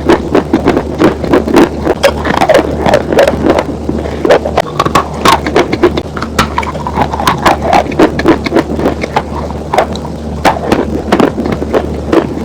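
Loud, close-miked crunching of dry chalk being bitten and chewed, several sharp crunches a second at an uneven pace.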